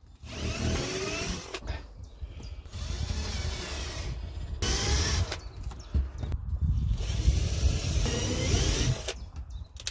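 Power drill running in about four bursts of one to two seconds, its motor pitch rising and dipping as it works into the timber.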